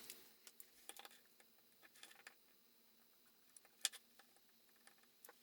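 Near silence with a few faint light clicks, the clearest a little before four seconds in.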